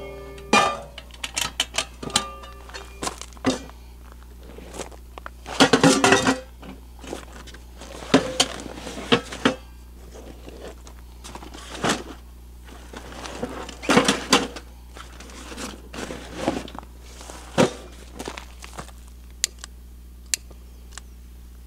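Camp gear being handled: metal clanks of a cooking pot and a steel fire pit, with the knock and crackle of dry sticks and kindling being gathered and dropped into the pit. The knocks come in irregular clusters, the loudest about six seconds in and again around fourteen seconds.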